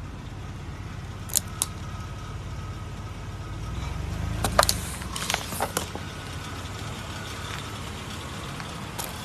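A car's engine runs with a low, steady rumble that swells briefly about four seconds in. Sharp cracks and snaps come over it, two near the start and a cluster around five seconds in, as objects break under the tyres.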